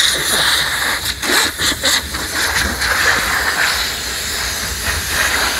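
Compressed air hissing from an air-hose blow gun as a mechanic blows dust off his clothes. The hiss is steady and is briefly interrupted a few times.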